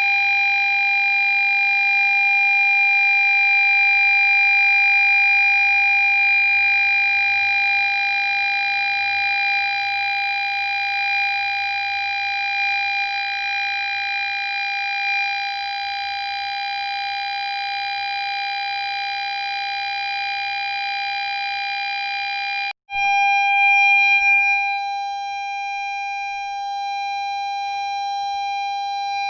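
Ford Fiesta parking sensor warning sounding one continuous high tone, which is the signal that an obstacle is at the closest range. The tone cuts out for an instant near the end and then resumes.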